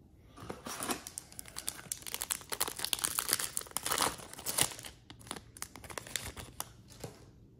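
Foil wrapper of a Topps Chrome baseball card pack being torn open and crinkled by hand: a dense run of sharp crackling crinkles, loudest about halfway through, thinning out over the last couple of seconds.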